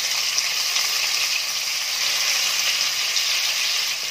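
Rounds of raw plantain frying in hot oil: a steady sizzle.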